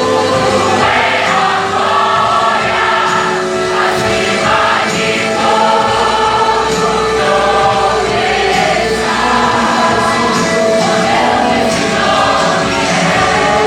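A choir singing a Christian worship song with instrumental accompaniment.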